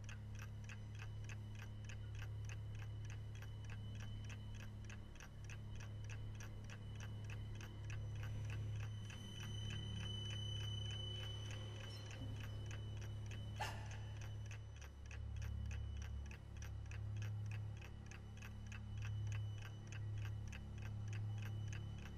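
A clock ticking steadily and evenly over a low, steady hum, with one sharper click a little past halfway.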